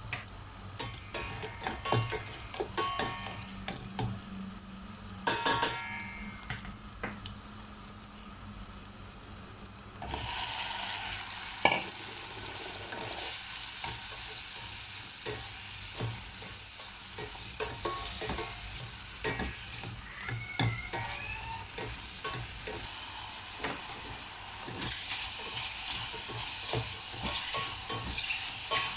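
Food frying in butter in a pan while a spatula stirs and scrapes against it with light clinks; about ten seconds in the sizzle suddenly gets much louder and stays steady.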